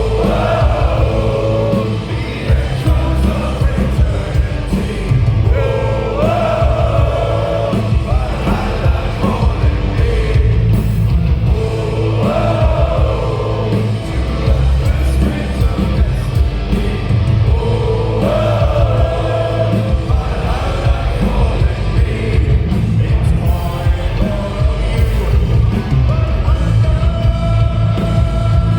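Live rock band playing loud, with heavy drums and bass, and a voice singing a melody in phrases that come back about every six seconds.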